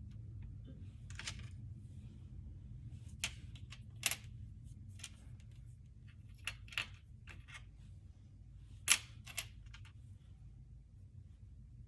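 Scissors cutting, with about a dozen irregularly spaced sharp snips; the loudest comes about nine seconds in. A low steady hum runs underneath.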